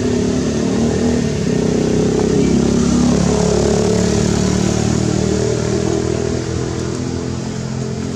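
A motor vehicle engine running steadily, with a held low hum and a slight rise in level around the middle.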